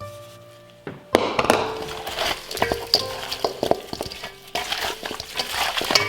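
Kitchen cooking sounds: utensils and dishes clinking and scraping against a pan over a steady sizzling hiss, louder from about a second in.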